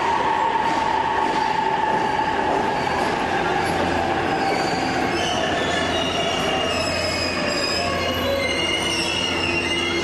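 E259 series Narita Express electric train rolling slowly into the platform and braking to a stop, with a whine that falls in pitch as it slows. High wheel and brake squeals come in during the second half.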